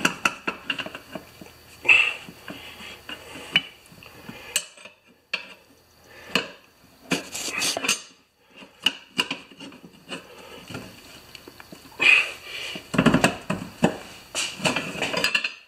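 A steel tire iron clinking, knocking and scraping against a small tractor wheel's steel rim as the tire bead is levered over it, in irregular strikes with a busier, louder stretch near the end.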